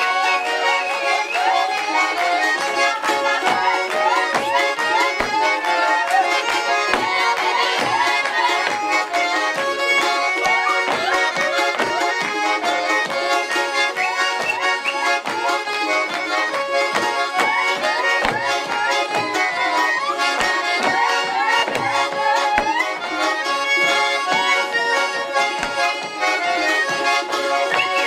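Button accordion playing a lively Russian folk dance tune, with dancers' feet stamping irregularly on the wooden stage floor.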